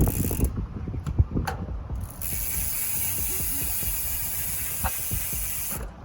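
Hope rear hub freewheel buzzing loudly as the back wheel spins and its pawls ratchet. It starts as rapid clicking, runs into a steady, very loud buzz about two seconds in, and cuts off suddenly near the end.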